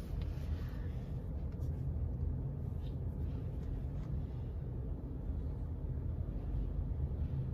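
Steady low rumble inside a car's cabin from the car's engine running, with a few faint clicks.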